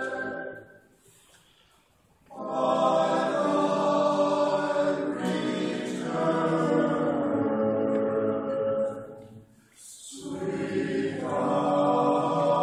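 Men's choir singing in phrases. A phrase ends and dies away in the first second, then there is a pause of about a second and a half before the singing starts again. A short break comes about ten seconds in before the next phrase.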